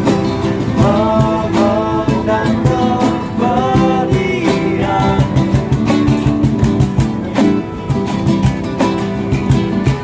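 Acoustic guitar strumming with a voice singing a wordless-sounding melody over it from about one to five seconds in.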